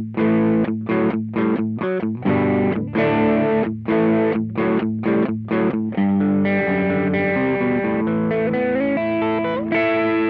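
Electric guitar played through an Ibanez Tube Screamer overdrive pedal: a riff of short, chopped chords, then held notes with a sliding pitch, ending on a chord left ringing.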